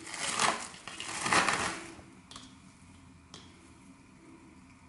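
Two short bursts of crinkly rustling from wrapping being handled, then quiet with a couple of faint clicks.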